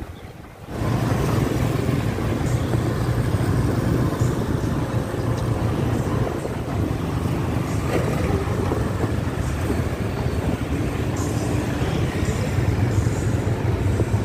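Steady vehicle engine and road noise from riding along a busy town street, with a strong low rumble. It starts abruptly about a second in.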